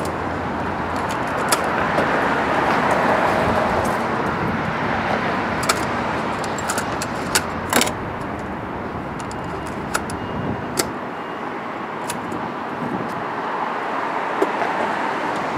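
Road traffic running steadily, swelling over the first few seconds and slowly easing off, with scattered sharp clicks and clacks from the controls and cassette deck of a portable boombox being worked by hand.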